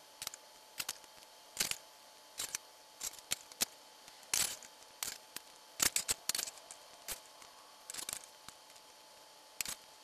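Metal spoon scraping and clinking against a metal saucepan while set fig jelly is scooped out, in quick irregular clicks and short scrapes.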